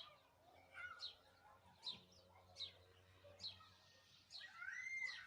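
Bird chirping repeatedly and faintly, short falling chirps a little over once a second, with a longer arching whistled note near the end.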